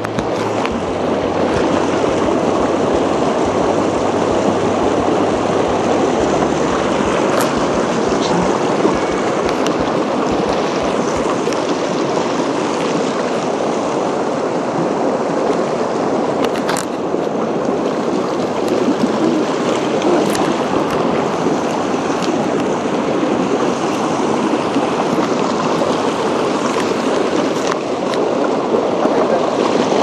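Mountain stream rushing over rocks and small cascades: a steady, loud rush of water, with a few brief knocks.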